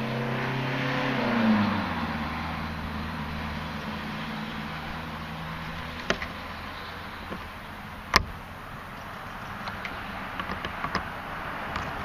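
A motor vehicle passing by: its engine hum swells, then falls in pitch and fades over the first few seconds. A few light clicks follow, with one sharp metallic click about eight seconds in, from handling the latch cylinder and its clips.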